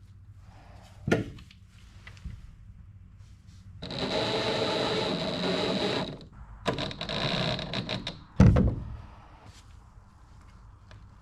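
A small power tool runs steadily with a high whine for about two seconds, stops, then runs again for just over a second. A knock comes about a second in, and a heavy thump follows the second run.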